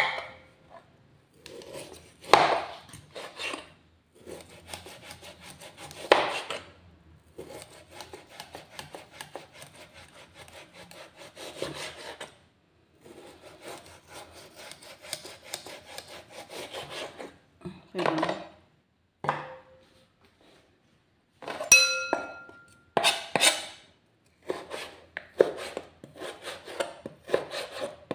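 A kitchen knife sawing back and forth through raw meat on a cutting board: repeated short scraping strokes with the blade ticking against the board. Around two-thirds of the way through there is one loud ringing clink, like a ceramic bowl being struck.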